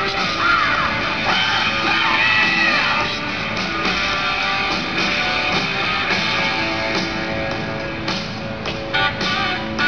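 Rock music playing, with a gliding melodic line in the first few seconds and a run of sharp hits near the end.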